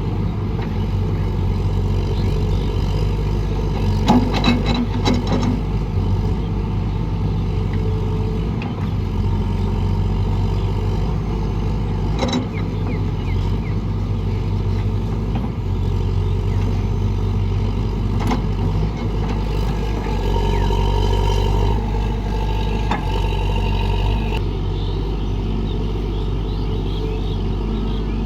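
Excavator's diesel engine running steadily, with a few short knocks scattered through it.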